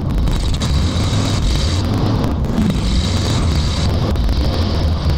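Vintage Dodge M37 military wrecker's engine running steadily as the truck drives over sand trails, with wind buffeting the microphone on the hood.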